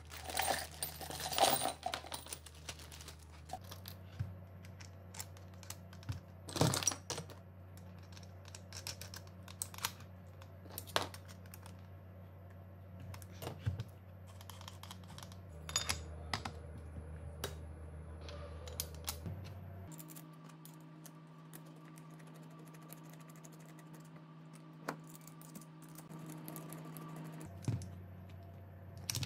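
Irregular small clicks and knocks of metal parts and hand tools being handled: a pin spanner on an angle grinder's spindle nut and a screwdriver fastening a metal chainsaw adapter to the grinder head. A low steady hum runs underneath and shifts pitch every few seconds.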